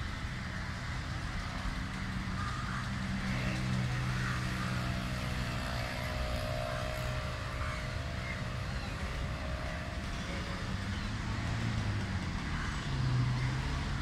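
Steady low hum of a motor vehicle engine running, growing louder near the end.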